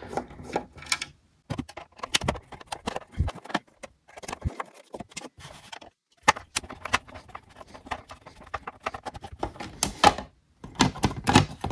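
Light clicks and small metallic rattles, irregular with short pauses, from screws being taken out of a headlight housing to free the lens.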